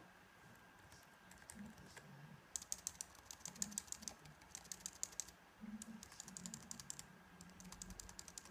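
Typing on a computer keyboard: two runs of quick keystrokes, the first starting about two and a half seconds in and the second shortly after, with a brief pause between.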